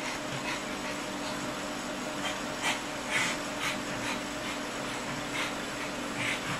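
A pug making a series of short, breathy sounds at irregular intervals over a steady low hum.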